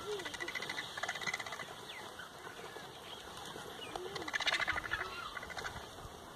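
Vultures squabbling over a carcass: harsh, rapidly pulsing rattling calls mixed with short squeals, in several bouts, the loudest about four to five seconds in.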